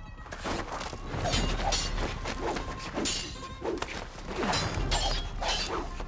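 A rapid flurry of steel katana blades clashing, each strike sharp and some ringing briefly, with swishes between the blows. These are film sword-fight sound effects.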